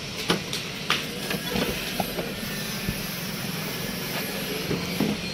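Steady workshop background rumble with a few sharp clicks and knocks from parts being handled during a car accessory installation.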